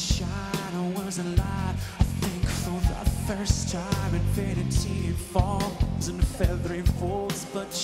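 Live rock band playing: regular drum hits over bass, with a wavering melodic line above from a voice or guitar.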